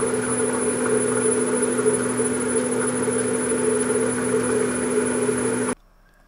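Bridgeport J-head milling machine running at a steady speed: its 3-horsepower motor, controlled by a variable frequency drive, spins the spindle's belt and step pulleys with a steady hum and a thin high whine. The sound cuts off abruptly near the end.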